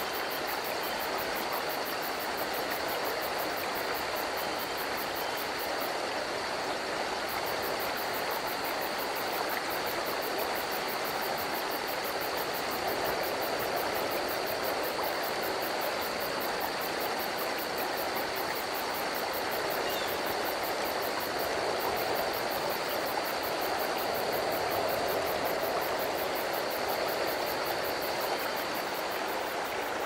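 Steady rush of flowing stream water with a continuous high insect trill over it, in an unbroken nature-sound loop.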